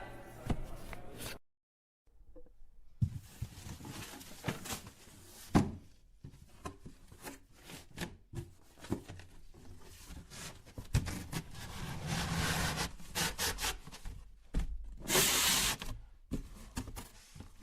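Handling noise from unpacking a refrigerator: rubbing and scraping with scattered knocks, and a louder burst of rasping noise about fifteen seconds in.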